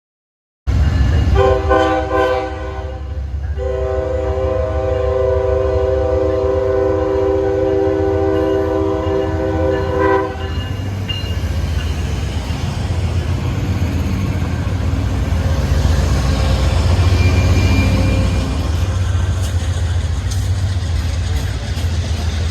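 Train horn sounding a chord of several notes, a short blast and then a long one of about seven seconds, over the steady low rumble of a passing train that carries on after the horn stops.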